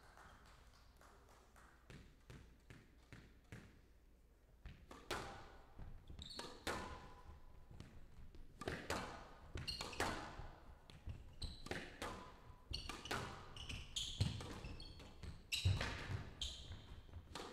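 Squash rally: a squash ball cracking off rackets and the court walls about once a second, starting about five seconds in, with short high squeaks of court shoes on the floor between the strikes.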